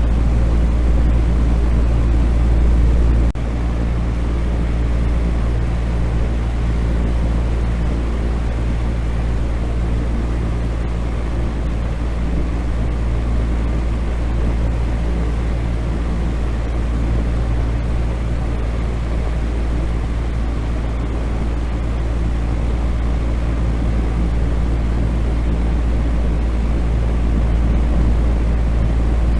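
Electric fan running steadily: a constant low motor hum under an even rush of moving air. A faint click about three seconds in, after which it is slightly quieter.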